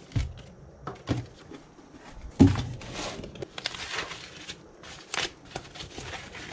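Packaging being handled and unwrapped: irregular crinkling and rustling with scattered clicks and knocks, the loudest knock about two and a half seconds in.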